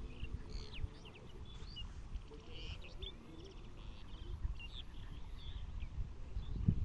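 Small birds chirping and calling in short, quick notes over a low rumble, with a dull thump near the end.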